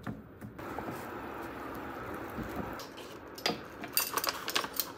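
Spatula stirring thick batter in a glass bowl, a soft steady scraping, followed in the last second or two by a ring of metal measuring spoons jangling and clinking.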